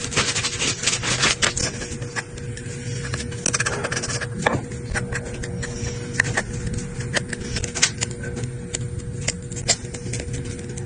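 Irregular small clicks and taps of hand tools working on a smartphone, over a steady faint hum.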